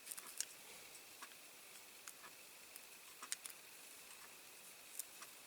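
Faint, scattered small clicks and ticks of a screwdriver and a small screw being worked into a diecast toy's body, a few seconds apart, while the screw is still failing to thread straight.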